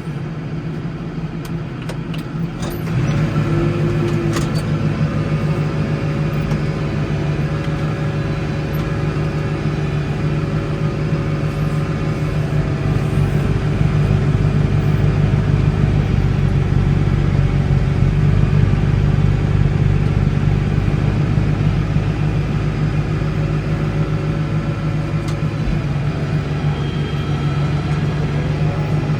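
Case 115U tractor's engine running steadily under work, growing louder about three seconds in and holding at the higher level.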